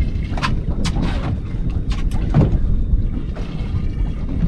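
Wind rumbling on the microphone, with a few sharp clicks and knocks in the first couple of seconds.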